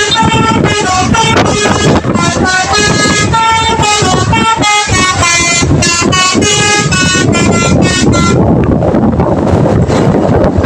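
Telolet horn on a tour bus, a set of multi-tone horns, playing a quick tune of short stepped notes that stops about eight seconds in. Then only a steady rumble of vehicle noise is left.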